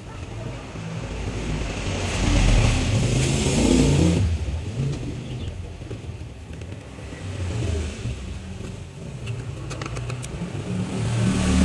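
Motor vehicle engine noise, as of traffic passing close by. It swells to its loudest about two to four seconds in, drops off abruptly, and builds again near the end.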